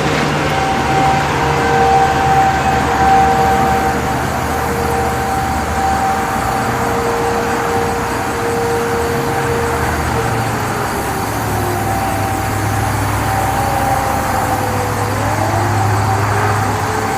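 Sentry 15V2T-B dual-tone outdoor warning siren sounding two steady tones over road traffic noise. About ten seconds in, the lower tone drops out and a pitch slides down, then slides back up near the end.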